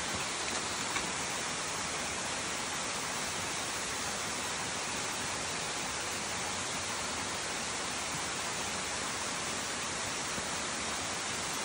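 Steady rushing of a cascading mountain-brook waterfall, an even roar with no breaks, with a couple of faint taps about a second in.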